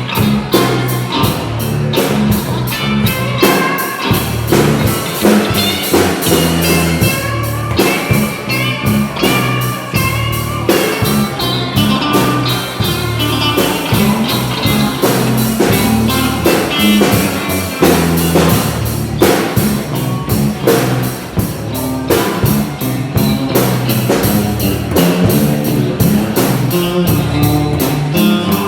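A band playing an instrumental blues-rock passage: a guitar lead with bending notes over drums and a low bass line.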